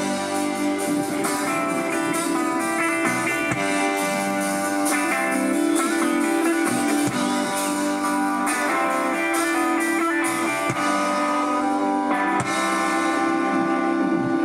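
Live rock band playing an instrumental passage, electric guitar to the fore over bass and drums.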